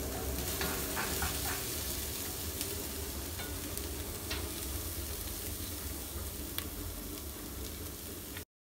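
Chopped onions sizzling as they fry in a heavy black pot, stirred with a wooden spoon, with scattered light clicks. The sound cuts off suddenly near the end.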